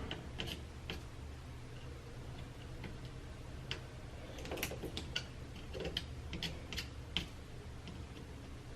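Irregular small sharp clicks and ticks of small components, MLCC capacitors and resistors, being worked off a small LED lamp circuit board, most of them bunched together a little past halfway, over a low steady hum.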